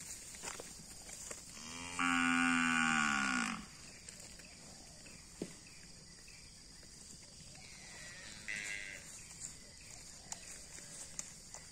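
Cattle mooing: one loud, drawn-out moo about two seconds in, lasting about a second and a half, then a shorter, fainter call near nine seconds in.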